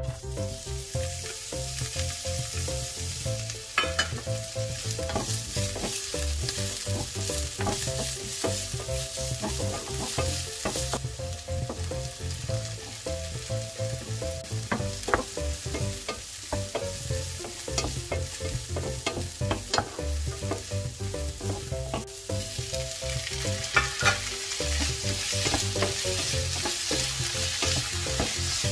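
Chopped vegetables sizzling in hot oil in a nonstick frying pan, stirred with a wooden spatula that knocks against the pan now and then. The sizzle gets louder near the end.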